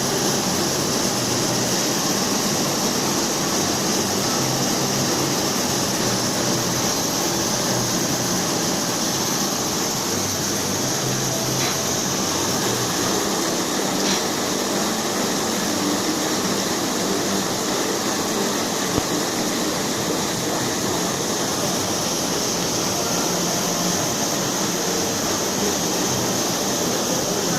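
Steady machinery noise, an even hiss with a rough hum beneath, unchanging throughout.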